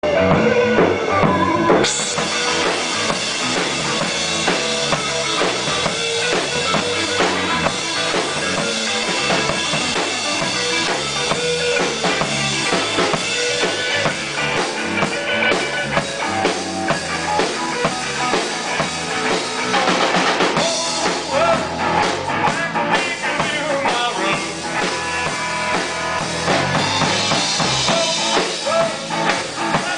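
Live rock and roll band playing: electric guitar, electric bass and drum kit, with a man singing into the microphone.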